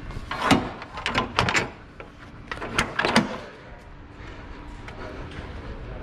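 Rear door of a curtainsider semi-trailer being swung shut and latched: a quick series of metal clanks and knocks over the first three seconds, after which it goes quieter.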